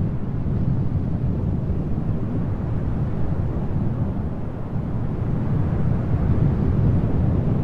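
Steady low rumble of a moving car, road and wind noise with no breaks.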